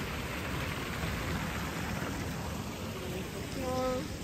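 Outdoor street ambience: a steady rushing wash of noise, with a short pitched sound carrying several overtones near the end.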